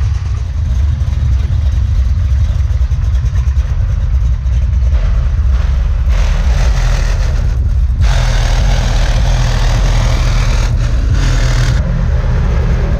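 Engine and exhaust of a 1970s Chevrolet donk rumbling deeply as it rolls past. About halfway in the exhaust grows louder and harsher, then eases off near the end.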